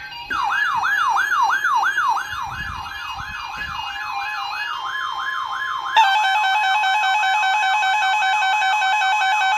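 Several RadioShack weather alert radios sounding their alarms at once for a NOAA Weather Radio required weekly test. A fast, repeating, falling siren-like sweep, about three and a half a second, sounds over higher beeping tones. About six seconds in it gives way, with a jump in level, to loud steady alarm tones that include the broadcast's warning attention tone.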